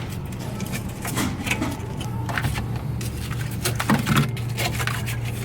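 Scattered knocks and clatter of a vending machine's refrigeration cooling deck being worked loose and pulled out, with the loudest knocks about four seconds in, over a steady low hum.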